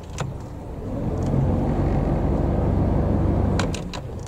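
Motor cruiser's inboard diesel engine running under way, swelling louder about a second in and easing back near the end, with a few sharp clicks near the end.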